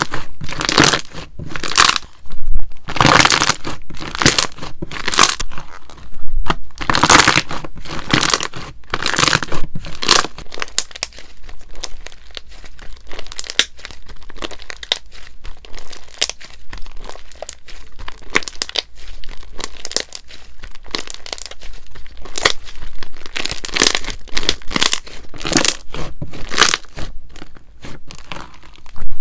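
Thick yellow slime with small beads mixed in, stretched, pulled apart and pressed by hand, giving irregular crackling and tearing sounds. The sounds come densest in the first third and again near the end.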